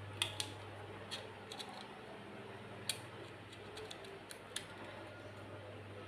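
Scattered sharp clicks and taps, irregular and a second or so apart, as the gold Desert Eagle pistol and its small parts are handled, over a steady low hum.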